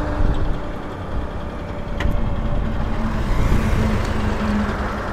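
Motor vehicle engine running steadily with road traffic noise, a low rumble with a held hum, and a single sharp click about two seconds in.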